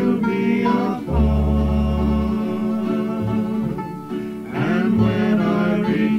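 A song: a singing voice over plucked-string accompaniment with low bass notes.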